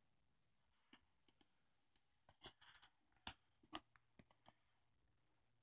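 Faint scattered clicks and light metal-and-polymer taps, about a dozen in a few seconds, as an AR-15 rifle is handled and turned over in the hand.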